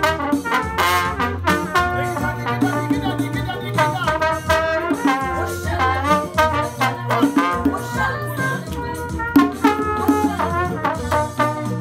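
Trumpet and trombone playing a lively tune together, over percussion keeping a steady beat.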